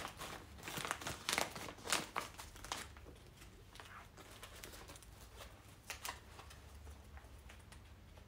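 Stiff sego gele headwrap fabric crinkling and rustling under the hands as it is pressed and tucked into place. The rustles are dense and loudest in the first three seconds, then thin out to a few faint ones.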